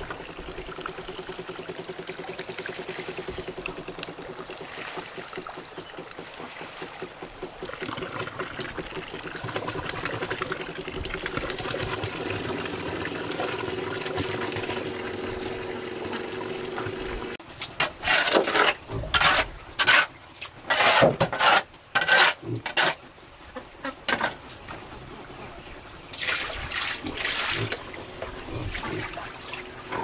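Water pouring and trickling steadily, then a series of loud short strokes a little past halfway, with a few more near the end.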